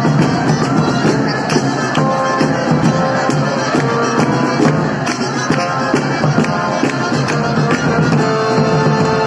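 A parade band playing, with a steady run of sharp drumbeats under held instrument notes.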